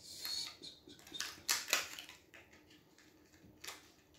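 Clear plastic clamshell tray of a boxed CPU crinkling and clicking as it is handled and closed around the processor: a short crackle at the start, then a few sharp clicks, the loudest about a second and a half in, and one faint click near the end.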